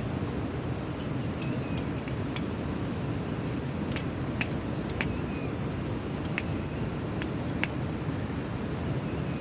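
Scattered sharp clicks and clinks, about ten of them at irregular intervals, over a steady low rumbling noise.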